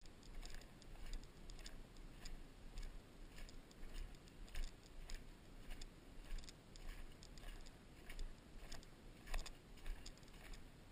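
Footsteps crunching through dry rice stubble at a walking pace, about two steps a second, over a low steady rumble.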